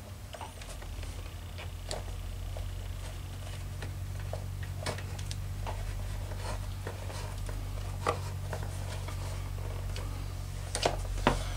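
Steady low hum of a room air conditioner, with scattered light clicks and taps as thread is pulled through leather in hand stitching.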